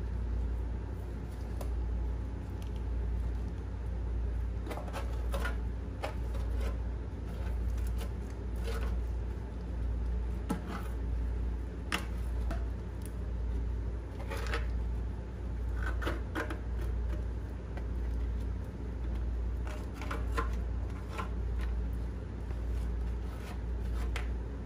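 A gloved hand scraping and scooping thick grease and crud out of the inside of a 1923 McCormick-Deering Type M engine's cast-iron block, with scattered short scrapes and clicks as the sludge is dropped into a tin can. A steady low hum runs underneath.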